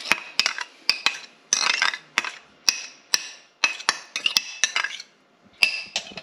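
Metal spoon scraping and clinking against a ceramic bowl as mayonnaise is scooped out. It is a quick run of sharp clinks with short scrapes between them, with a brief lull near the end.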